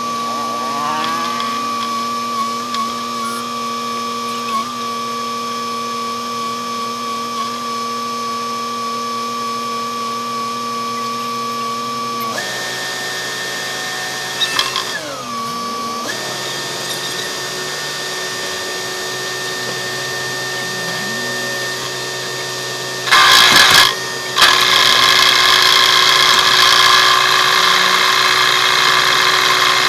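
Road-works machinery running with a steady whine; its pitch changes abruptly about twelve seconds in. From about 23 seconds on, a loud rushing hiss starts, briefly cuts out, then carries on.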